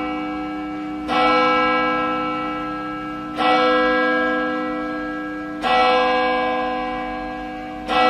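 Church bell tolling: four strokes about two and a quarter seconds apart, each ringing on in a cluster of steady tones that slowly fade before the next.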